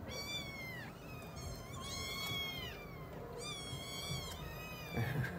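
Several kittens meowing over and over, high-pitched calls that rise and fall, some overlapping one another: the kittens are being demanding.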